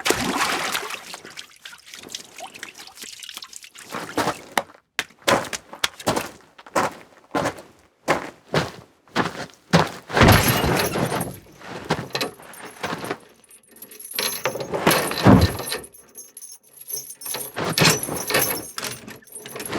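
Foley effects made of knocks and thuds: a string of separate sharp strikes through the middle, followed by busier handling noise with a few heavy hits.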